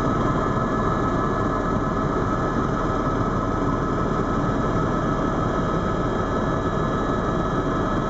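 Steady in-cabin noise of a Eurocopter EC130 Ecostar tour helicopter in cruise flight: the engine and rotor drone at an even level, with a constant high whine over it.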